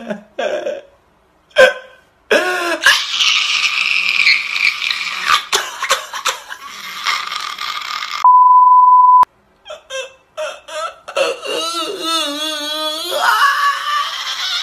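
A man wailing loudly in long, high, wavering cries, with a steady beep of about a second a little past halfway.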